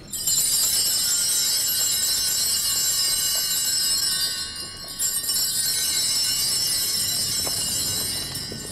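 Altar bells, a cluster of small handbells shaken by altar servers, ringing with a continuous high jingle to mark the sacramental blessing. The ringing breaks off briefly a little after four seconds, then starts again and fades near the end.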